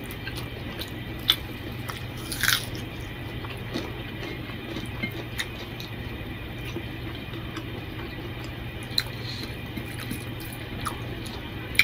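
Close-up chewing and wet mouth sounds of a man eating rice and curry by hand, with fingers squishing the rice on the plate. Scattered short smacks and clicks stand out, the loudest about a second and two and a half seconds in, over a steady low hum.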